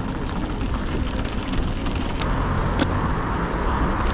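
Steady rolling and wind rumble while riding a bicycle through city traffic, with a few light clicks and rattles. The noise turns a little brighter about halfway through.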